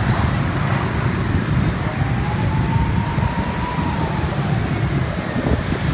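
Dense road traffic, mostly motorbikes, running with a steady low rumble, and a faint whine that rises and then falls near the middle.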